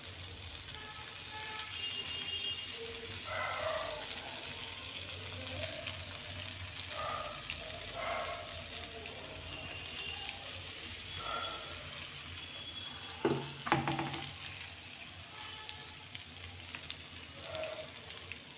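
Semolina-coated kingfish steaks sizzling steadily as they shallow-fry in oil and butter in a nonstick pan, with two soft knocks about two-thirds of the way through.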